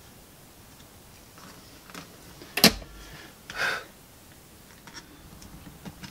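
Hands handling a calculator's plastic battery compartment and its wires on a workbench: a few faint ticks, then a sharp click about two and a half seconds in, a short scraping rustle a second later, and a few light taps near the end.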